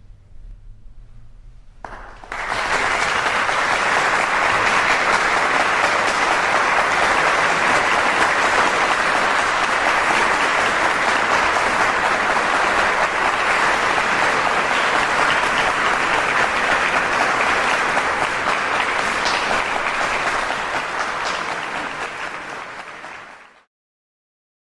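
Concert audience applauding after a piece ends, starting suddenly about two seconds in, holding steady, then cut off abruptly near the end.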